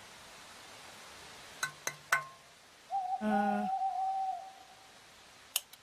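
Three quick clicks of the bicycle lamp's switch, then a wavering owl hoot lasting about a second and a half, starting about three seconds in. Two more faint clicks come near the end.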